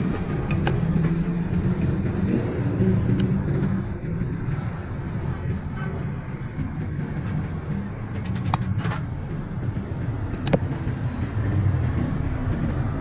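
A steady low mechanical running sound, like a motor or engine, with a few sharp metallic clicks over it.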